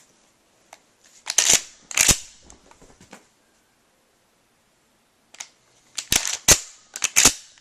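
Sharp metallic clacks of a 12-gauge pump-action shotgun being loaded and racked, in two groups: a few clacks followed by fainter rattles, then after a pause of about two seconds a second run of four quick clacks.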